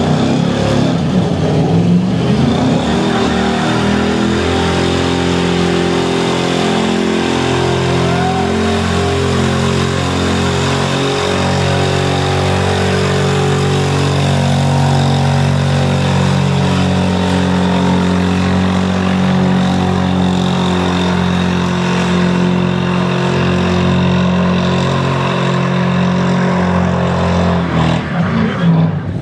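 Long tyre burnout: a sedan's engine held at high revs while its rear tyre spins and smokes against the pavement, the engine pitch holding steady with small steps. The engine lets off near the end.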